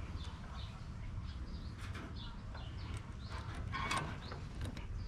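A few short clicks and knocks of hand tools working on a tractor's diesel injection pump, the strongest about two and four seconds in, with birds chirping in the background.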